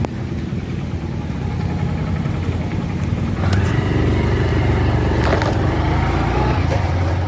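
Motor vehicle engine running close by: a steady low rumble, with a brief pitched engine note in the middle.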